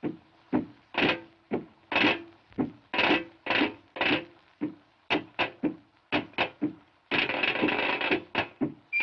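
Music from an early sound-cartoon score: a run of separate accented hits about twice a second, then quicker strokes, and about a second of dense continuous sound near the end, where a drummer starts marching.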